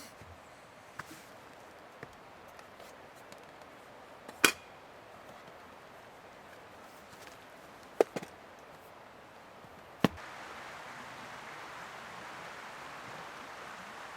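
Wood being chopped with a blade: a few sharp, separate knocks, one about four seconds in, a quick pair near eight seconds and one at ten. After the last knock a steady rushing hiss comes up and carries on.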